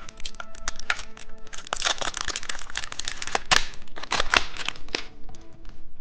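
Plastic candy packaging crinkling and tearing as it is opened, with a dense stretch of crackling in the middle and a few sharp snaps.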